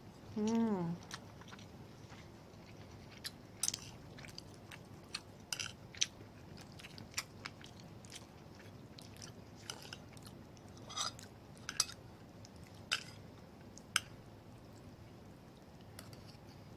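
Close-up eating sounds: chewing and biting on ginger beef and rice, with scattered short wet clicks of the mouth. A brief falling hum of the voice comes about half a second in.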